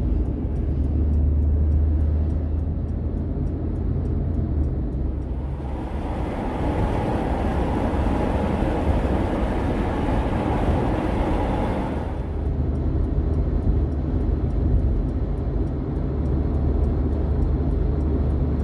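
Steady low engine drone. A broad rushing noise joins it from about six to twelve seconds in.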